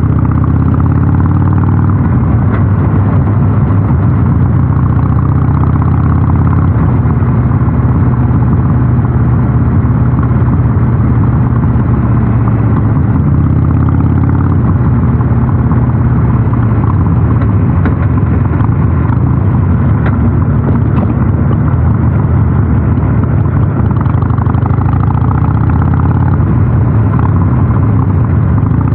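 Harley-Davidson Sportster 883 SuperLow's air-cooled V-twin running under way through a North American-spec muffler: a steady, loud exhaust note whose pitch rises and falls a few times with throttle and gear changes.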